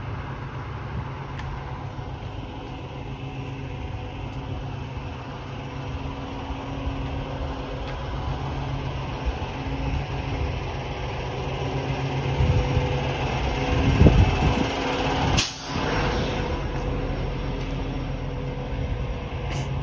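Diesel engine of a semi-truck hauling a car-carrier trailer, idling steadily with a low hum. The rumble swells about two-thirds of the way through, and a brief sharp noise comes just after.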